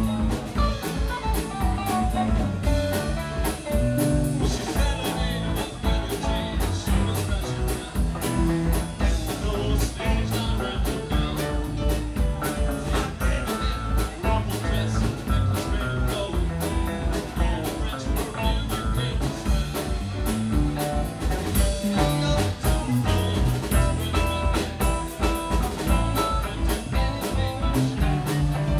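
Live rock band playing an instrumental passage: electric guitars, drum kit and keyboard, with a steady drum beat.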